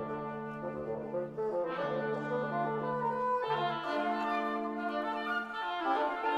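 Woodwind quintet of flute, oboe, clarinet, bassoon and French horn playing sustained chords together, the harmony shifting about every two seconds.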